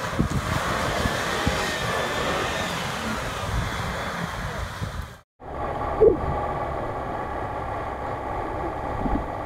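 Land Rover Discovery engine pulling the 4x4 through a water-filled ditch, with water splashing around the wheels. After a sudden break about five seconds in, the engine runs on steadily with a short knock.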